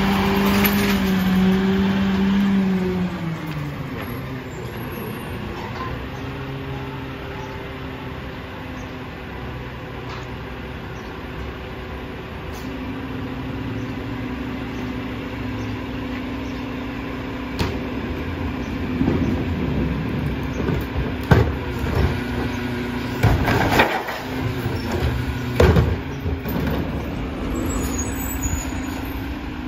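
Rear-loader garbage truck's diesel engine running at high speed, dropping off about three seconds in, then running steadily. Past the middle comes a string of sharp metallic clanks and bangs from carts and the rear hopper being worked.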